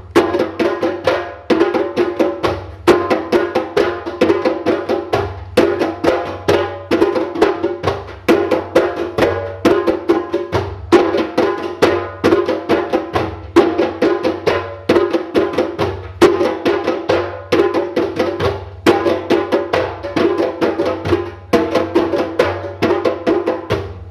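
Percussive music of fast wooden strikes over pitched notes, in a phrase that repeats about every second and a half.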